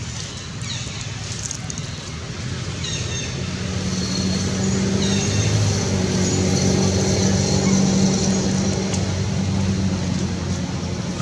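Motor vehicle engine running with a steady low hum, growing louder a few seconds in and staying loud for several seconds.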